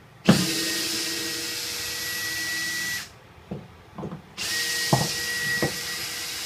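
Cordless drill running at a steady whine in two runs of about two and a half seconds each, with a pause of just over a second between them. A few short knocks come in the pause and during the second run.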